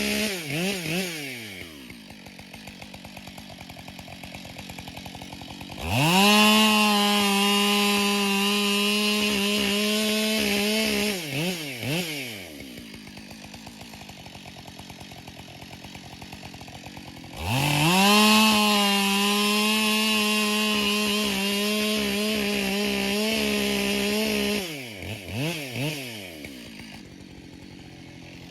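Husqvarna 572XP two-stroke chainsaw with a 20-inch bar cutting ash logs into firewood. It runs at full throttle for two cuts of about five to seven seconds each and drops back to idle between them, with a few quick revs as each cut ends. It is also coming off full throttle at the very start.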